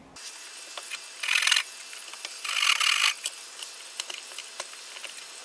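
A bench chisel paring the end of a hardwood table leg to shape a round tenon: two scraping cuts, a little over a second apart, with light ticks of steel on wood in between.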